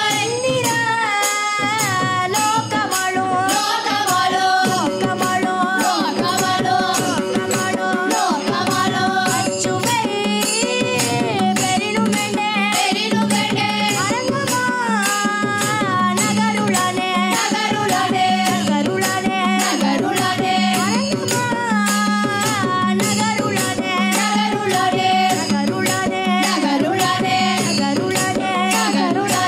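Group of girls singing a Carnatic-style devotional bhajan, accompanied by mridangam drumming, with the audience clapping along in time.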